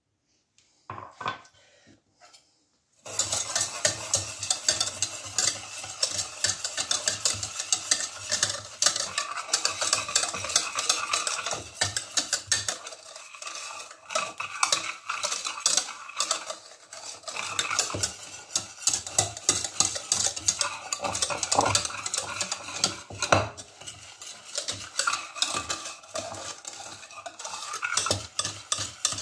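Wire whisk beating eggs and sugar in a stainless steel pot: a fast, steady clatter of the wires against the metal, starting about three seconds in after a couple of light knocks.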